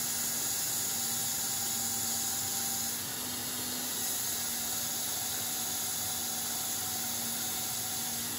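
Home-built belt grinder driven by a 750 W single-phase pool-pump motor, its abrasive belt grinding steel under load: a steady hiss with a faint low hum, easing slightly about three seconds in.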